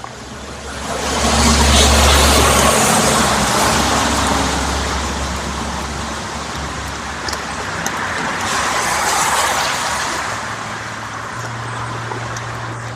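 Vehicles passing on a rain-wet road: a broad hiss that swells about two seconds in and again near nine seconds, with a low engine hum underneath.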